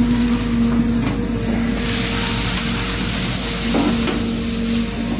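An engine running steadily with a low hum, and a hissing wash of noise that grows brighter from about two seconds in.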